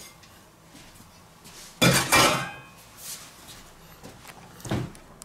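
Stainless steel bowl and metal kitchen tongs being put down: one loud metallic clank with a brief ringing tail about two seconds in, and a shorter, duller knock near the end.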